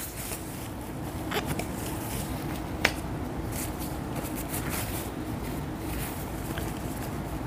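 Faint rustling of a paper tissue being handled and pressed to the lips to blot lipstick, with a small sharp click about three seconds in, over steady background noise.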